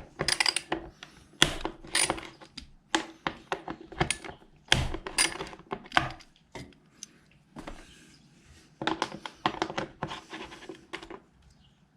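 Metal hand tools clicking and knocking against a dirt bike's rear fender while the two seat bolts are undone, with a denser run of quick clicks about nine seconds in.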